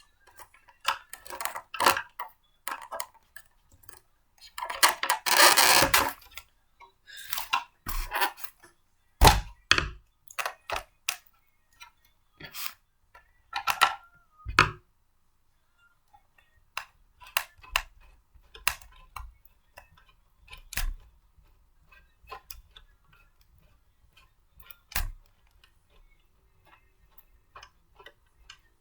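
Blender parts being handled and fitted together by hand: scattered clicks and knocks, with a brief scraping rustle about five seconds in.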